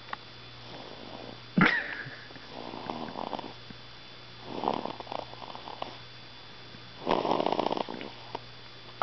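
Three-week-old baby snoring in his sleep: three snoring breaths about two seconds apart, the last the loudest. There is one brief sharp sound about a second and a half in.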